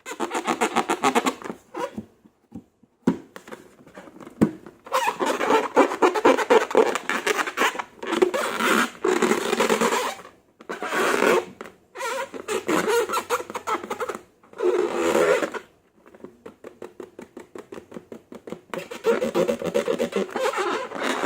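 Slime being squeezed and worked by hand: dense, sticky crackling and popping in bursts of a few seconds, with short pauses between.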